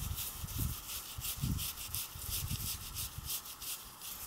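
Paintbrush bristles scrubbing a bicycle chain soaked in petrol to degrease it, a quick rasping stroke about four times a second, with soft knocks mixed in.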